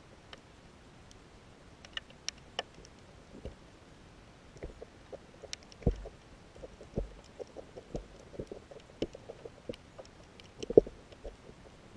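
Irregular clicks and knocks heard underwater, a few at first and then several a second from about halfway, some with a dull thump; a sharp knock near the end is the loudest.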